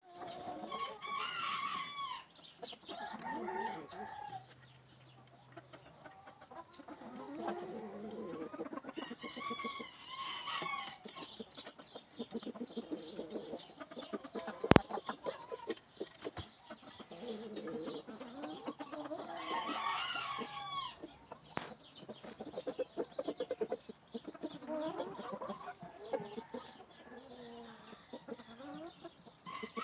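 Young gamecock (stag) crowing several times, roughly every ten seconds, with chicken clucking in between. A single sharp click about halfway through.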